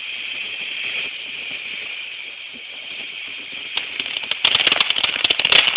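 Ground firework fountain hissing steadily as it sprays sparks. About four and a half seconds in, it breaks into dense, rapid crackling pops.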